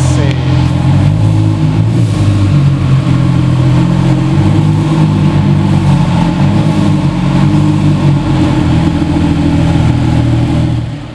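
Porsche 911 GT2 RS Clubsport's twin-turbo flat-six running at a steady idle, loud and even, fading out near the end.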